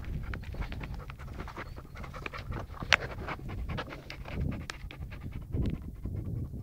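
Heavy breathing close to the microphone, over a scatter of small crisp clicks and crunches.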